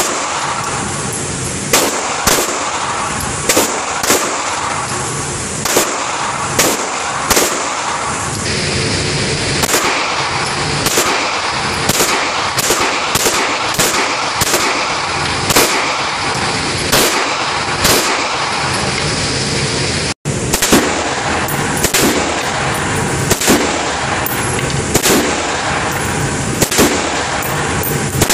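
A long string of single semi-automatic gunshots at an indoor shooting range, roughly one to two shots a second, over a steady hiss of background noise.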